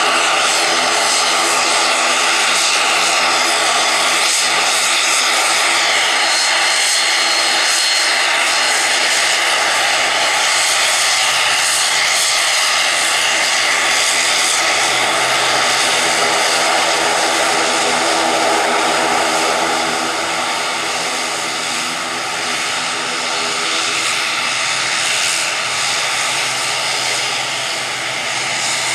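Turboprop engines and propellers of an ATR 72-500 running at taxi power: a steady whine and propeller drone made of several fixed tones over a broad rush. It eases slightly about two-thirds of the way through.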